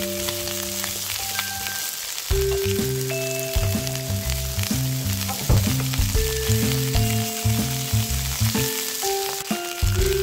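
Food sizzling as it fries in a pan, a steady crackling hiss, under background music with a bass line and melody.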